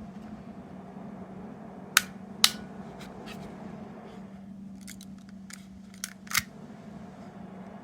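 A series of sharp clicks or snaps: two loud ones about two seconds in, a couple of lighter ones soon after, and a cluster around five to six and a half seconds, over a steady low hum.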